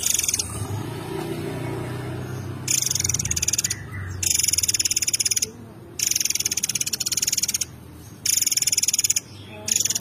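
A caged murai air mancur songbird singing a series of very rapid, buzzy, rattling trill phrases, each about a second long, with short pauses between them. A low rumble fills the first couple of seconds, before the trills begin.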